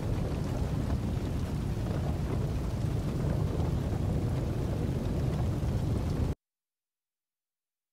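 A large fire burning: a steady low rumble that cuts off abruptly into silence about six seconds in.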